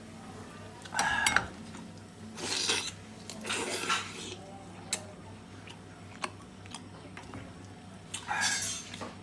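Dishes and utensils clinking and scraping in several short, irregular bursts.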